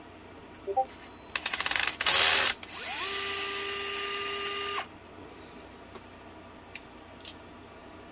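Cordless electric screwdriver backing screws out of an RC car chassis: a rapid run of clicks and a short harsh burst as a screw breaks loose, then the motor spins up and whines steadily for about two seconds before it stops. A couple of light clicks follow near the end.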